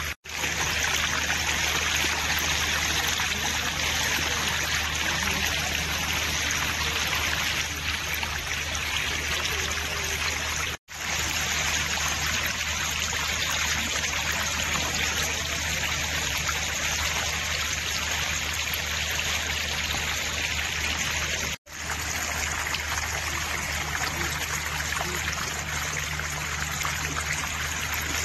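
Floodwater running in a shallow sheet across a road surface, making a steady stream-like rushing. The sound drops out briefly three times.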